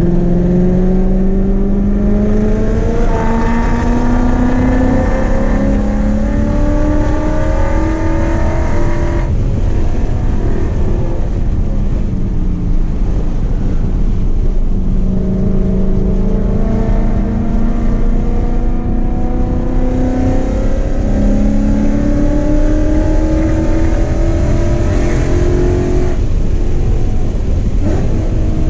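A 2015 Mustang GT's 5.0 V8, breathing through long-tube headers, an X-pipe and Borla ATAK mufflers, heard from inside the cabin under hard acceleration on track. The revs climb steadily in long pulls and drop away sharply twice, about nine seconds in and again near the end, over a constant low rumble of road and wind noise.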